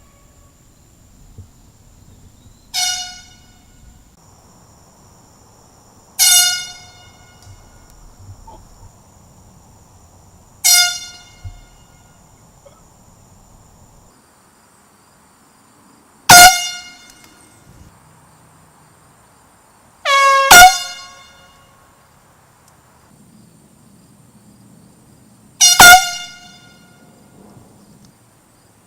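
Handheld air horn blown in short, loud blasts every four to five seconds, about seven in all, with two in quick succession near the two-thirds mark.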